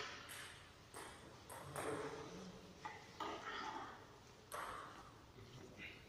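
Faint, sharp clicks of celluloid table tennis balls striking bats and tables during a rally at another table, several in a row at uneven spacing, echoing in a large sports hall, with indistinct voices.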